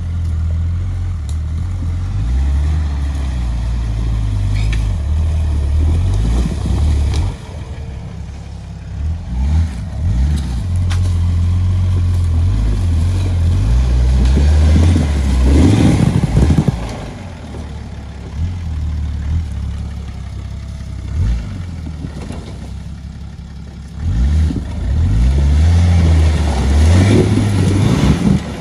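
Nissan Patrol's swapped-in BMW M57 twin-turbo straight-six diesel engine working at low speed over rocks, revving up in repeated surges with quieter idling lulls between.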